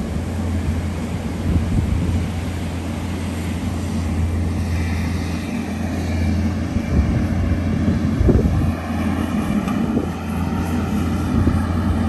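Engine drone: a steady low hum, with a higher whine of several tones coming in about four seconds in.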